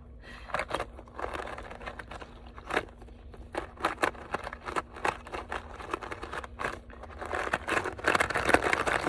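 Plastic packaging crinkling and rustling in irregular bursts as it is handled and unwrapped, growing busier and louder near the end.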